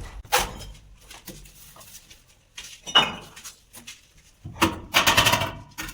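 Metal hand tools clinking and scraping at masonry work: scattered sharp clicks, one ringing clink about three seconds in, and a longer stretch of scraping near the end.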